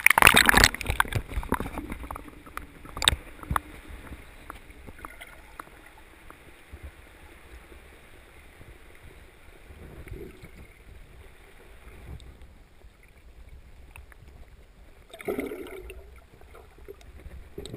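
Water sloshing and splashing against an action camera's waterproof housing as it dips under the surface, loudest in the first second, with a couple of sharp knocks soon after. Then muffled underwater sound, with another brief splash about fifteen seconds in.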